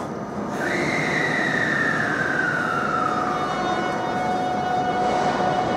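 681-series limited express electric train starting to pull out, its traction motors giving a whine that slides slowly down in pitch and then settles into a steady tone.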